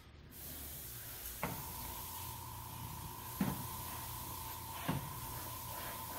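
Airbrush compressor running with a steady hiss and low hum, and a faint steady whine that sets in about a second and a half in. A few light knocks as paint bottles are handled on the table.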